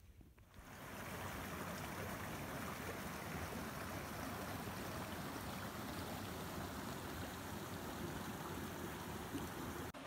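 Small creek running over rocks: a steady rush of water that rises in about half a second in and then holds even.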